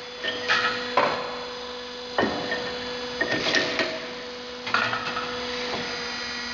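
Fan flanging machine's motor humming steadily while a sheet-steel fan housing is handled on its rollers, with several sharp metallic clanks and scrapes of the thin sheet metal against the machine, the loudest about two seconds in.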